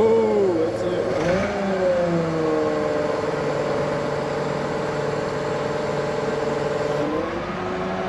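Forklift engine revved to work the hydraulic lift. Its pitch rises and falls twice in the first two seconds, then holds steady, and drops to a lower steady speed about seven seconds in.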